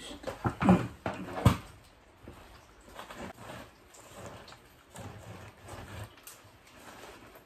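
A few loud knocks as a plastic bucket of potting soil is handled and set down, then hands sweeping loose potting soil across a plastic seedling cell tray, a soft scraping rustle.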